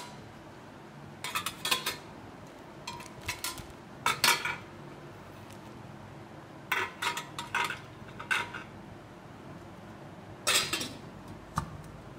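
Stainless-steel kadai, idli plates and lid clinking and knocking together as they are handled and fitted. The clinks come in short runs every second or two, with quiet gaps between.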